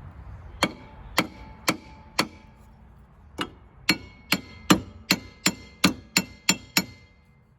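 Hammer blows on the rear brake hub of an EZGO ST350 golf cart, beating around it to work it loose from the axle. There are four ringing metallic strikes, a short pause, then ten quicker strikes.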